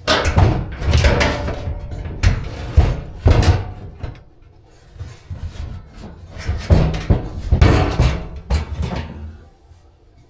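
Loud clattering, bumping and scraping handling noise in two spells, with a quieter gap in the middle.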